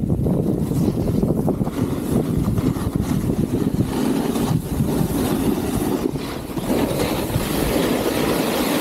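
Wind rushing over the microphone while snowboards slide over groomed snow: a steady rumbling hiss that gains a brighter scraping edge from about four seconds in.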